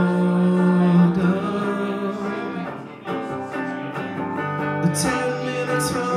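Live band music: a singer-songwriter's guitar-and-vocal song in a passage between sung lines, with a held low note in the first second or so.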